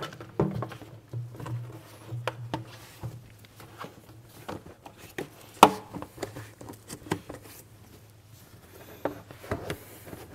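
Black plastic engine air intake duct being handled and fitted back into place: scattered knocks, rubs and clicks of hard plastic, with one sharp snap about five and a half seconds in. A low steady hum runs underneath.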